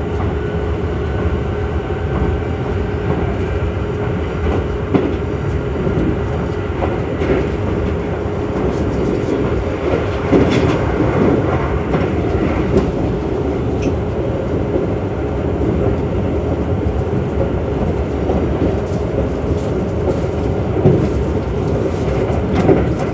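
Running noise inside a Kintetsu Urban Liner plus limited-express car at speed: a steady rumble of wheels on rail with a continuous hum and a few sharp clicks.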